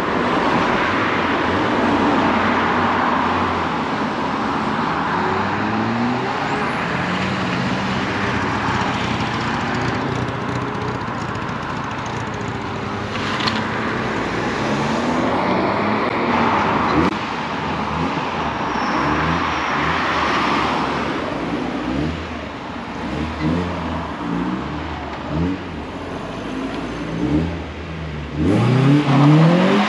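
Car engines running as cars pull away one after another, their revs rising as they accelerate; near the end one car accelerates hard, its revs climbing steeply and loudly.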